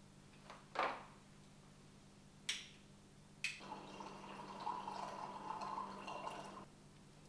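A few short knocks and two sharp clicks of kitchen crockery, then tea poured from a pot into a mug for about three seconds, a steady splashing fill that stops abruptly.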